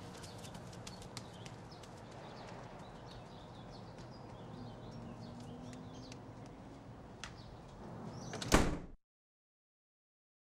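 Quiet outdoor ambience, then a house door slams shut once near the end.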